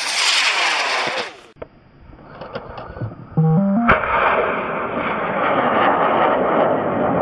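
Amateur rocket motors firing at launch: one motor's roar fades out over the first second and a half, then another motor ignites suddenly about four seconds in and keeps burning steadily.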